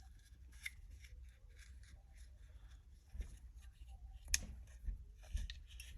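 Small pistol parts of a Glock 43 being handled and fitted by hand: scattered light clicks and scrapes, with one sharper click about four seconds in.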